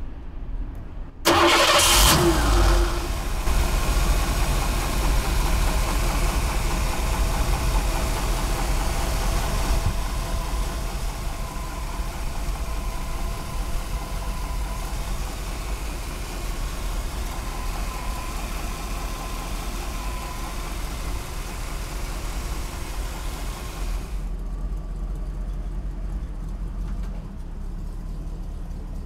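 A 302 ci small-block V8, breathing through shorty headers and a dual exhaust with Dynomax mufflers, fires up about a second in. It runs loudest for the first several seconds, then settles into a steady idle. Near the end the sound turns duller, losing its hiss.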